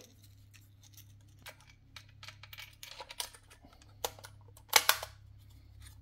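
Scattered small clicks and light scrapes of a dryer timer's metal and plastic parts being handled and fitted back together, with a louder cluster of clicks about five seconds in.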